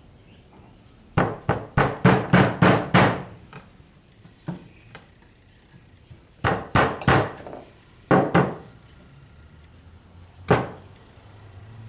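Hammer strikes on an NP208 transfer case, knocking at the stuck speedometer drive to work it loose from the aluminium housing: a quick run of about seven blows, then groups of three and two, and a single last blow.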